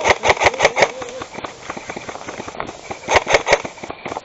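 Airsoft gun firing rapid shots, each a sharp crack: a quick string of about eight at the start, then a shorter string of about five about three seconds in.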